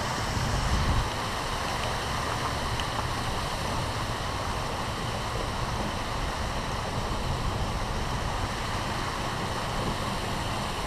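River water rushing steadily over rocks, with a brief low rumble about a second in.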